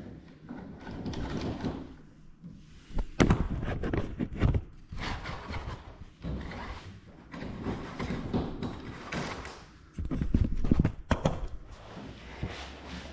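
Handling noise of an electrical cable being worked and pulled through the small hole of a wall outlet box: irregular scraping and rustling with a few sharp knocks, the loudest about three seconds in and again around ten to eleven seconds in.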